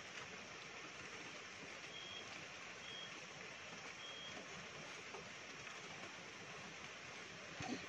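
Faint, steady hiss with a few short, high, beep-like chirps at uneven intervals, and a soft thump just before the end.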